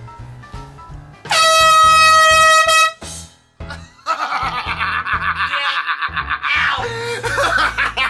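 A handheld canned air horn blasts once for about a second and a half, a loud, steady, high-pitched blare that cuts off sharply. About a second later a woman's voice breaks into a long shrieking laugh, over background music with a steady beat.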